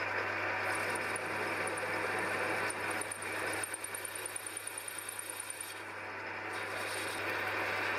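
Metal lathe running while its knurling tool rolls a pattern into an aluminium test piece and a brush is held against the spinning work. A steady hum sits under the machining noise, with a fast, even ticking from about a second in to about six seconds in.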